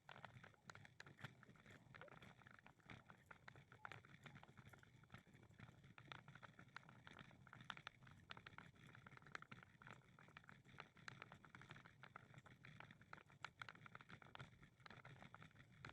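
Faint, irregular tapping and scuffing of footsteps on a walk, several small clicks a second over a low outdoor hiss.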